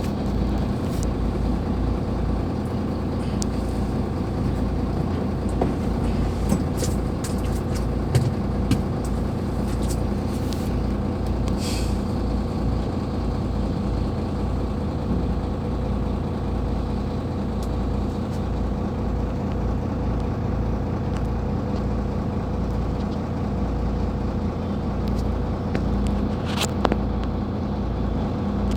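Excavator's diesel engine running at a steady pace, with scattered short clanks and knocks, a cluster of them midway and another near the end, and a brief hiss about twelve seconds in.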